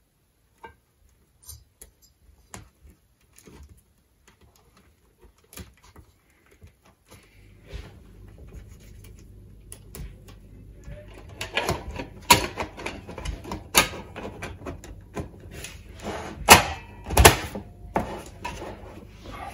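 Small clicks, then a busy clatter of sharp metal knocks as the sheet-metal case of a computer ATX power supply is handled and its top cover with the fan is fitted back on. The clicks are sparse at first, and the loudest knocks come in the last few seconds. A low steady hum comes in about a third of the way through.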